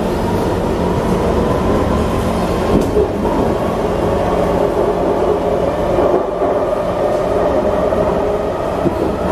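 Running noise heard inside a moving Singapore MRT East West Line train car: a steady rumble of wheels on rails with a whining motor tone that rises in pitch over the last few seconds as the train picks up speed.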